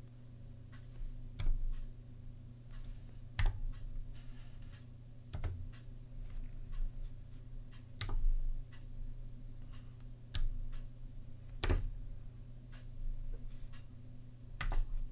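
Keystrokes on a Zilpzalp ergonomic keyboard with Kaihua Twilight low-profile switches: irregular, unhurried clicking, with a sharper, louder stroke about every two seconds among fainter ones.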